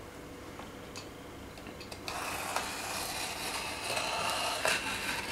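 Snap-off utility knife blade slicing along the packing tape and cardboard of a parcel: a steady scraping cut that starts about two seconds in and lasts about three seconds, after a couple of faint clicks.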